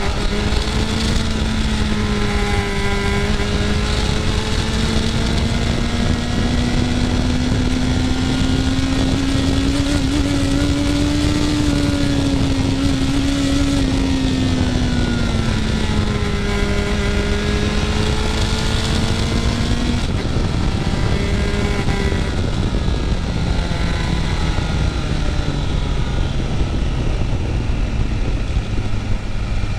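Motorcycle engine running while riding, under steady wind noise. The engine note climbs slowly for about the first twelve seconds, falls back, and drops lower over the last several seconds as the bike slows.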